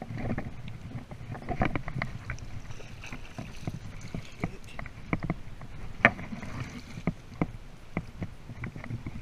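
River water sloshing and splashing around a landing net and the wading angler's legs, with irregular short knocks and clicks throughout, the sharpest about six seconds in.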